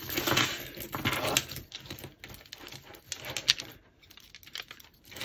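Tangled costume jewellery, metal chains and beads, clinking and rattling as hands rummage through a pile on a table, with a sharper click about three and a half seconds in.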